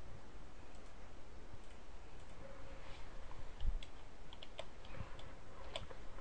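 A few faint computer mouse clicks, mostly in the second half, over a quiet room hiss.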